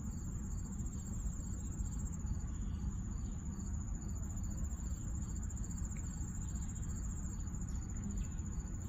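Insects trilling without a break in one high, finely pulsing tone, over a low steady rumble.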